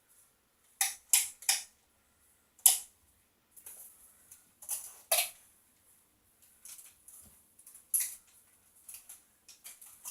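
Nerf blasters being worked and fired, giving short sharp pops and clicks: three in quick succession about a second in, then scattered single pops and fainter clicks.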